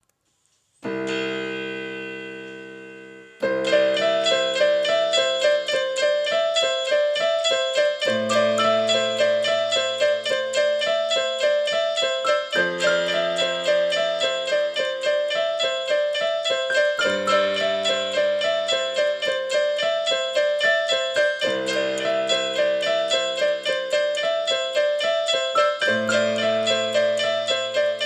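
Background piano music: a held chord fades for a couple of seconds, then a quick, even run of repeated notes plays over bass chords that change every few seconds.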